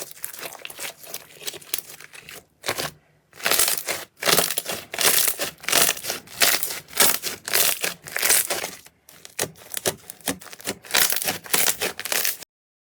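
Slime being squeezed and pressed by hand, a run of crackly, crinkling squishes about two a second, stopping abruptly near the end.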